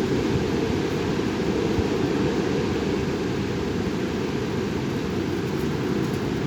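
Strong wind blowing across the microphone: a steady, loud, low rumble.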